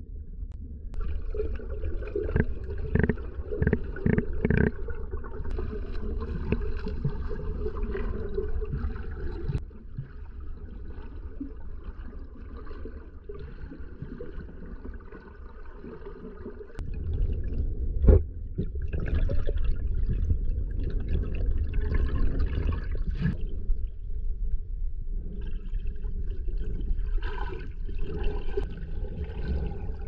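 Stream water heard underwater: a muffled, continuous low rumble and gurgle of moving water, with scattered clicks and one sharp knock about two-thirds of the way through. It drops quieter for several seconds in the middle.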